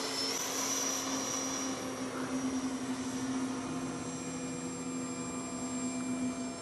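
Whine of a 90 mm electric ducted fan on a 6-cell battery, powering an RC jet trainer in flight. The high whine climbs slightly in pitch just after the start, then holds steady over a low hum.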